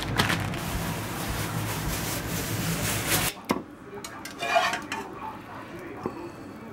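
A steady hiss over a low hum that stops abruptly about three seconds in. A metal utensil then clinks a few times against a ceramic plate, with a short ring after each strike.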